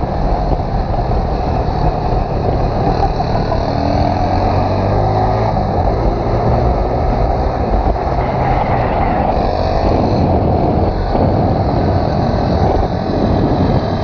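Motorcycle engines running on the open road, with heavy wind rush on the microphone; an engine's pitch rises and falls a few times as the bikes accelerate.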